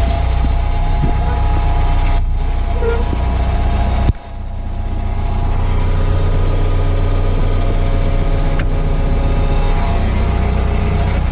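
Bobcat 743 skid steer's diesel engine running steadily, with a sudden short drop in level about four seconds in before it comes back up.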